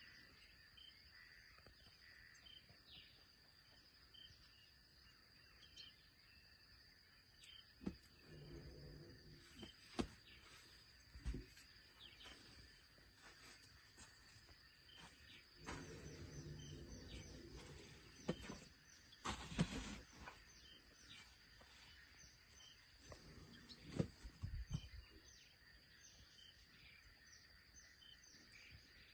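Quiet savanna ambience: a steady high insect drone with scattered bird chirps. A few soft knocks and rustles stand out, and three times a low pitched murmur rises for a couple of seconds.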